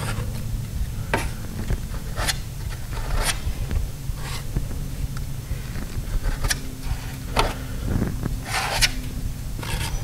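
Bondo body filler being pressed and scraped onto a steel door with a hand spreader: short scraping strokes, about one a second, over a low steady hum.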